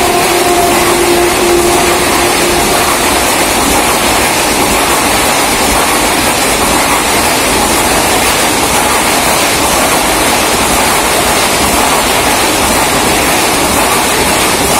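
Passenger train of blue coaches, hauled by an electric locomotive, running past along the platform: a loud, steady rush of wheels and air, with the last of its horn note fading away in the first few seconds.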